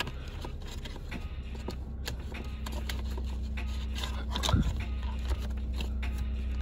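Light taps, clicks and rustles of a hand handling small items on a car dashboard, with one louder knock about four and a half seconds in, over a steady low hum in the car cabin.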